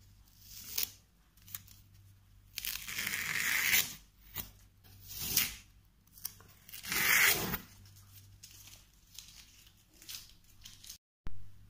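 Masking tape peeled off painted canvas paper strip by strip: a run of ripping pulls, the longest about a second, with shorter ones between.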